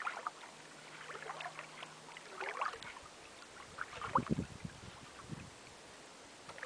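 Open water lapping and splashing in small irregular slaps over a steady hiss, with the strongest splash about four seconds in.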